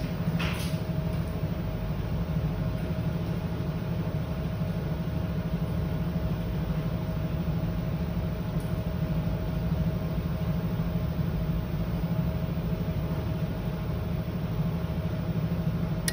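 Diesel generator engine running steadily, a constant low drone with a faint steady tone above it.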